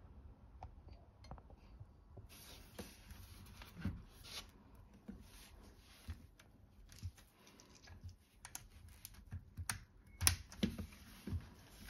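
A LEGO brick model and its rubber tyres handled by hand: scattered plastic clicks, taps and rubbing, with the sharpest clicks about four and about ten seconds in.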